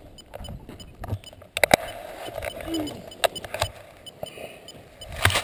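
Paragliding harness straps and buckle being handled close to the microphone: a few sharp clicks and knocks with rustling of the gear.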